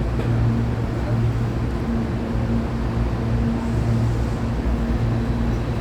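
Hankyu electric train standing at the platform with its onboard electrical equipment humming steadily, a higher tone in the hum dropping in and out.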